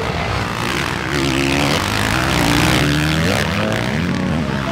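Several motocross bikes' engines racing, their pitches rising and falling as the riders open and close the throttle and shift, a little louder around the middle.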